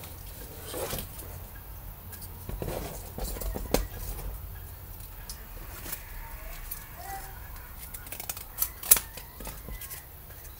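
Hands handling pieces of cardboard and paper on a cutting mat: scattered light taps, scrapes and rustles, with two sharper clicks about four and nine seconds in.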